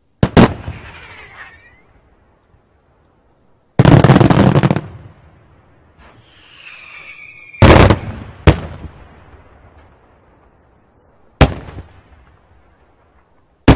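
Daytime fireworks by Senatore Fireworks: aerial shells exploding overhead with sharp, loud reports. About four seconds in comes a dense roll of rapid bangs lasting about a second, and a falling whistle leads into the loudest pair of bangs near eight seconds. Single bangs follow later.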